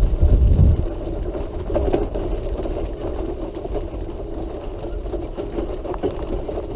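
Power wheelchair on the move: a Quickie Q700 mid-wheel drive's motors run while its wheels and spider-track casters rumble over a rough path. It is a steady mechanical drone, with a louder low rumble in the first second.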